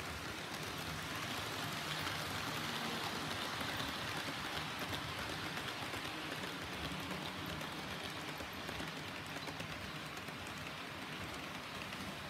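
HO-scale model train, a brown electric locomotive hauling blue sleeper coaches, running along the track. Its wheels rolling on the rails and its motor make a steady hiss that grows louder as the train passes close, between about two and five seconds in, then eases as it moves away.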